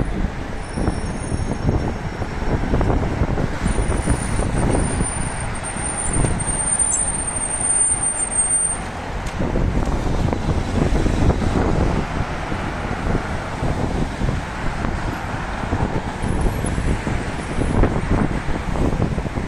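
City road traffic: cars, buses and trucks passing in a continuous rumble that swells and ebbs. A thin high whine runs for about five seconds in the first half.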